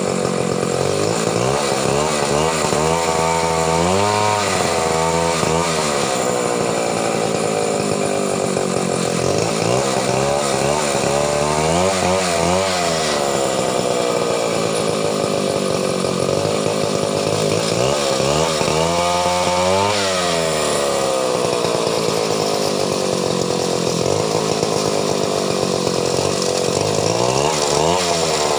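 Two-stroke chainsaw running hard the whole time. Its note rises and falls in quick runs of revs several times, and between them the pitch sinks slowly over several seconds.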